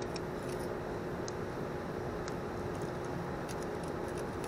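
Faint light clicks and taps of small metal parts being handled as a throttle control bracket is fitted onto a small engine's carburetor, over a steady background hum.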